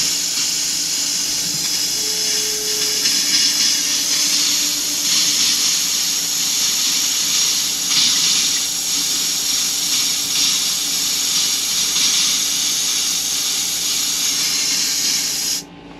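Compressed air hissing hard out of an RV bathroom sink faucet into a stainless steel basin, spraying water ahead of it as the water line is blown out for winterizing. It starts with a sudden rush and cuts off suddenly near the end.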